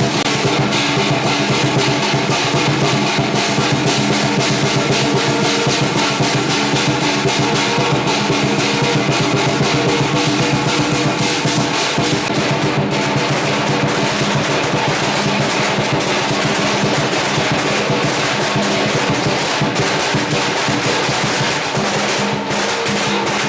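Chinese parade percussion: small drums beaten in a fast, continuous roll, with steady ringing tones held over the drumming.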